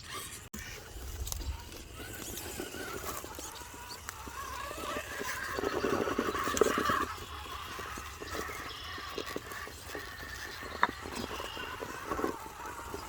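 Radio-controlled rock crawler's brushless motor and gears whining as it climbs a rock obstacle, swelling loudest about halfway through, with a sharp click near the end.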